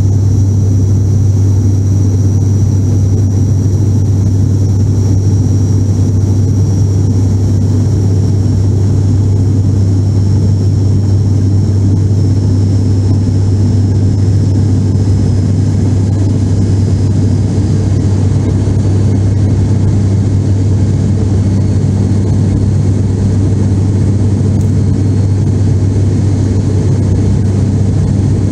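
Cabin drone of an ATR 72 airliner's turboprop engines and propellers in flight, heard from a window seat: a loud, steady low hum with a faint high whine that drifts slightly lower partway through.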